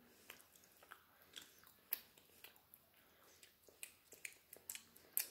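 Faint close-up chewing of a piece of Hershey's milk chocolate bar, with scattered small mouth clicks and lip smacks.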